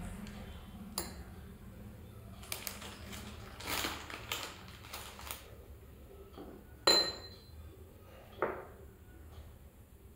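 A glass bowl and a cup being handled on a wooden table: scattered light knocks and rustles, then a sharp ringing clink of glass about seven seconds in and a duller knock a moment later.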